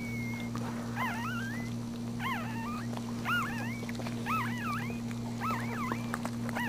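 Newborn puppy crying in short, high-pitched squeaks, each rising and falling, about once a second.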